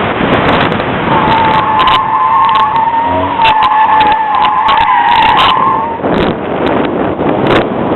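Chevrolet Cavalier at speed, its tires squealing under hard cornering for about five seconds over the running engine and rushing noise, then the squeal stops and the engine and rushing noise carry on.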